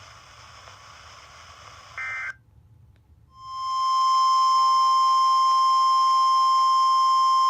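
NOAA Weather Radio 1050 Hz warning alarm tone, a single steady electronic tone that fades in over about a second and then holds loud. It signals that a warning broadcast follows. A short electronic chirp comes about two seconds in, before a brief gap.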